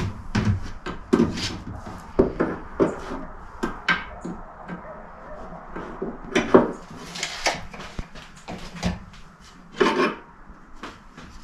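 Irregular knocks and scraping rubs on wood, with a handful of sharper raps, the loudest about six and a half seconds and ten seconds in.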